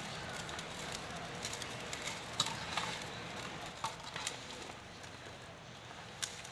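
A spoon stirring raw mango pieces into coarse, dry pickle masala in a stainless steel bowl: a soft gritty rustle with scattered light clicks of the spoon against the steel.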